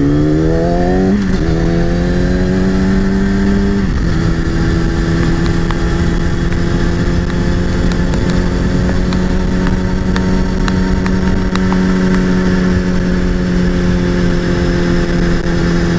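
Kawasaki sport bike engine accelerating, its pitch climbing and then dropping at two upshifts within the first four seconds. It then holds a steady pitch at cruising speed.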